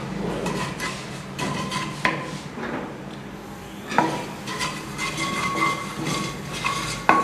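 Wooden spatula stirring cumin seeds and garlic-ginger paste in hot oil in a small karahi, scraping and tapping the pan. There are two sharp knocks against the pan, one about four seconds in and one near the end.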